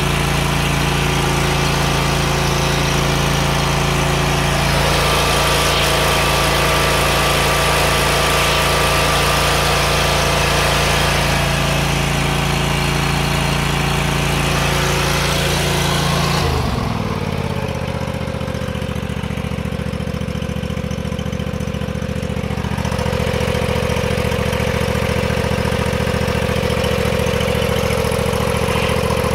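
John Deere GT245 lawn tractor's 22-horsepower Kawasaki V-twin running steadily on its repaired ignition module. About 16 seconds in, the engine speed drops and the sound turns a little quieter, then holds steady.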